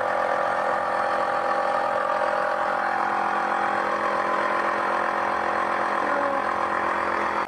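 Smoke machine running with a steady, even hum while it pushes smoke into the engine's intake during a vacuum-leak test.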